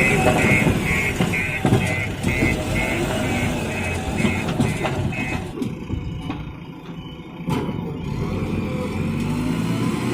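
JCB 3DX backhoe loader's diesel engine running, with its reversing alarm beeping about twice a second until about five seconds in, when the beeping stops and the engine drops back before picking up again.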